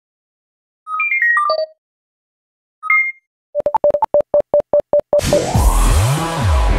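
Electronic outro sounds: a short falling run of beeps, two more tones, then a quick even series of short beeps, about six a second. Electronic dance music with a wobbling bass starts about five seconds in.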